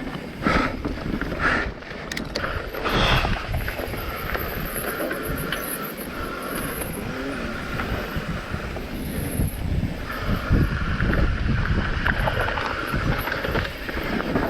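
Wind buffeting the microphone over the rattle and tyre noise of a mountain bike riding fast downhill on a rough trail, with a few sharper knocks in the first few seconds.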